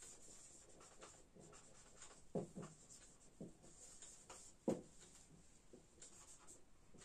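Whiteboard marker writing on a whiteboard: a run of faint, short strokes, with louder ones about two and a half seconds in and just before five seconds.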